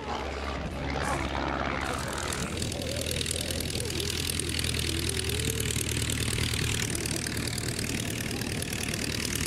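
A de Havilland Tiger Moth biplane's engine running steadily in flight, heard from the open cockpit with wind rushing over the microphone. For about the first two seconds it is heard from the ground instead, farther off and duller.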